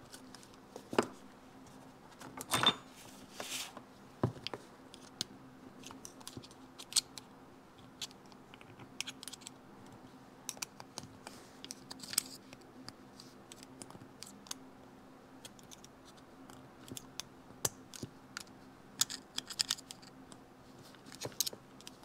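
Light, scattered metallic clicks and short scrapes of a snap ring being fitted onto a Yamaha DT-2 transmission shaft, with snap-ring pliers and then a steel pick working the ring into its groove.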